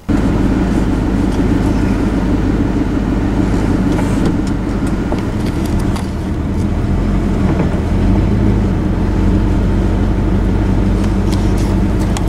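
Pickup truck driving: steady engine and road noise with a few light clicks and rattles, easing slightly about six seconds in.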